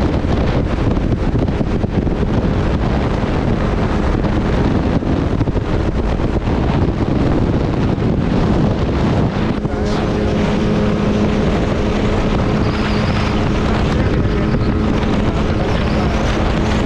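Jet ski engine running under way, mixed with heavy wind buffeting on the microphone; about ten seconds in, a steady engine tone comes through clearly and holds.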